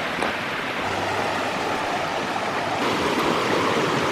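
Alameda Creek flowing, a steady, even rush of running water.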